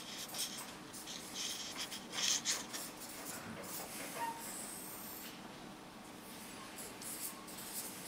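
Marker pen writing on flipchart paper: a string of short, scratchy strokes with brief pauses between them, over faint room tone.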